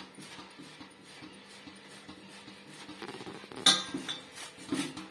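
Potato being rubbed down a stainless steel box grater in quick scraping strokes, with a sharp metal clatter about three and a half seconds in and a smaller one about a second later as the grater knocks against the steel plate beneath it.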